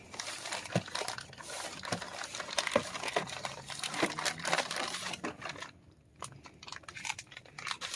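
Handling noise from a new charcoal cabin air filter being turned over and set aside: irregular rustling with light knocks, pausing briefly about six seconds in.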